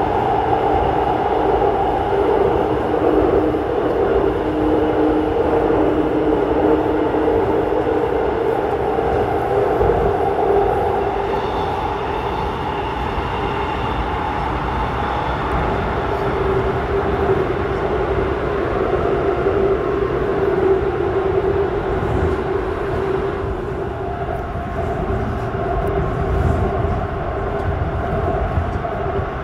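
Airport Railroad (AREX) all-stop electric train running, heard from inside the carriage through a tunnel: a steady rumble of wheels on rails with the electric drive's humming tones, which shift about halfway through.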